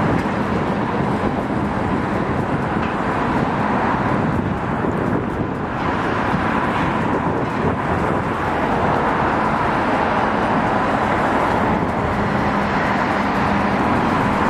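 Road traffic running past close by: a loud, steady rush of tyre and engine noise with a low hum underneath, swelling slightly about halfway through as a vehicle goes by.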